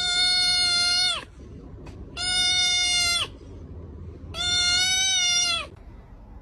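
Kitten meowing three times, each a long, high, steady mew of a little over a second that drops in pitch as it ends.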